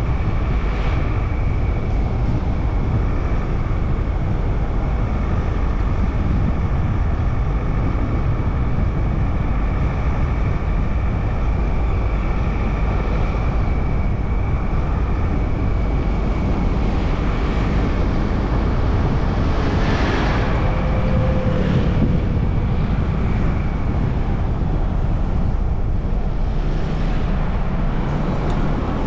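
Road and wind noise inside a moving car: a steady low rumble with a constant hiss. About twenty seconds in there is a brief louder whoosh.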